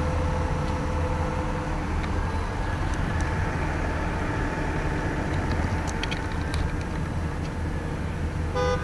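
Steady low rumble of an idling fire engine's diesel engine, with a few faint clicks and a short pitched tone near the end.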